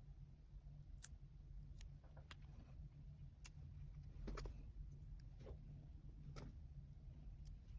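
Soft, scattered clicks and taps of paper, stickers and stationery being handled while journaling, over a low steady hum.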